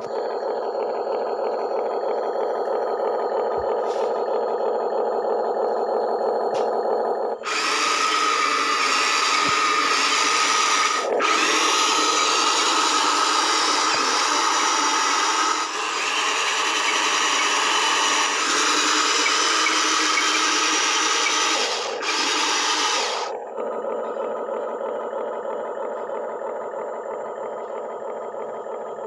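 A small electric motor runs with a loud, noisy whir for about sixteen seconds, cutting out briefly twice, over a steady multi-pitched hum that is heard alone before it starts and after it stops.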